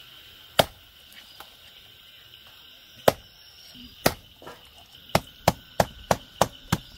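Hill chicken being chopped into pieces: a few separate chops, then a steady run of about three chops a second from about five seconds in. Crickets keep up a steady high chirring behind.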